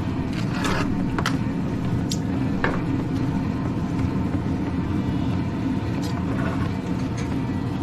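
Loud, steady mechanical rumble, described as "loud as hell", with a few light clicks and taps as chicken thighs are set on the grill grates.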